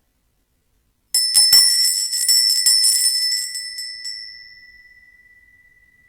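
A tiny bell rung rapidly for about three seconds, starting about a second in, with a bright, high ring. It then rings out, fading slowly.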